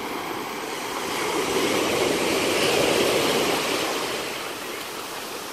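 Sea waves washing onto the shore. The rushing noise swells to a peak about halfway through, then eases off.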